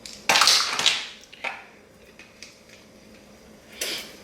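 Kitchen utensils and containers being handled at a counter: a clattering burst near the start, a short knock about a second later, and another brief clatter near the end.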